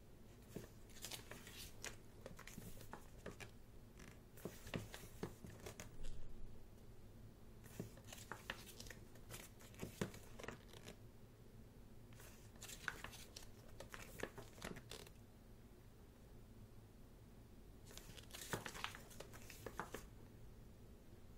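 Pages of a thick photobook being turned one after another: short spells of paper rustling and sliding every few seconds.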